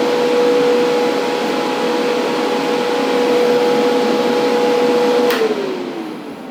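Budget airbrush paint booth's exhaust fan running with a steady hum over a loud rush of air. About five seconds in it is switched off with a click, and the hum falls in pitch as the fan spins down.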